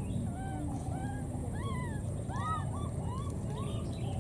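Baby monkey crying over and over: short high cries that rise and fall in pitch, about two a second, over a steady low background rumble.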